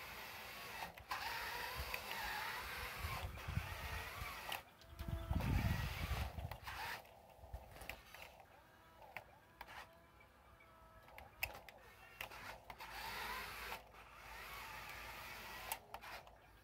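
Small electric drive motors and servos of a radio-controlled Caterpillar wheel loader whining in short bursts that rise and fall in pitch as it drives and moves its bucket in sand. A louder low rumble comes about five seconds in.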